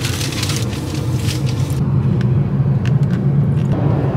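Car engine idling, heard from inside the cabin as a steady low hum. Rustling for the first couple of seconds, then a few light clicks.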